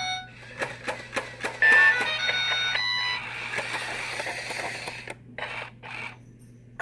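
Battery-operated animated toy parrot (Gemmy Pete the Repeating Parrot) working: a string of sharp mechanical clicks from its moving parts, then a run of short electronic whistle-like tones, then a few short hissy bursts with gaps between them.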